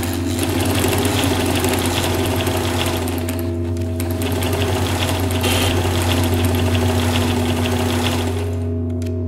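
Sewing machine running fast, its needle mechanism chattering in a rapid, even rhythm, over a steady low electronic drone. The machine stops about nine seconds in, leaving the drone.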